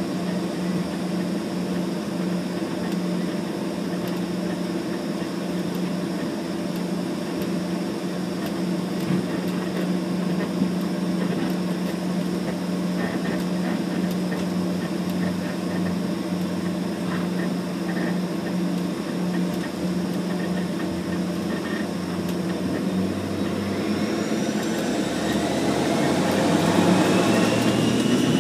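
Airliner engines heard from inside the passenger cabin, a steady hum while taxiing. About 24 seconds in they spool up with a rising whine and grow louder as take-off power is applied.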